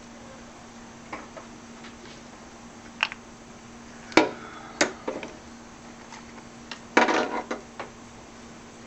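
Metal bolts and hand tools clinking and tapping on the engine's intake plenum as bolts are tried in their holes, with scattered sharp clinks and the loudest around four and seven seconds in. A faint steady hum runs underneath.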